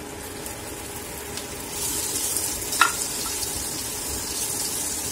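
Stuffed okra sizzling in hot oil in a nonstick frying pan, the sizzle growing louder about two seconds in as the pods go in and are stirred. One sharp clink just under three seconds in.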